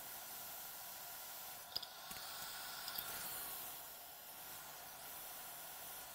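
Faint steady hiss with a few soft clicks about two and three seconds in.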